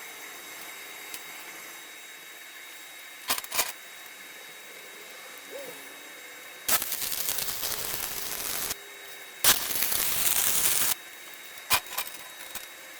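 Stick (arc) welding with thin 1/16-inch rods on 16-gauge square tube: two short bursts of crackling arc, the first about two seconds long and the second about a second and a half, starting past the middle. A few sharp clicks of metal on metal come before and after.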